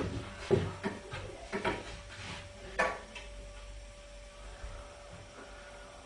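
Snooker balls clicking: a few short, sharp knocks in the first three seconds, then a faint steady hum.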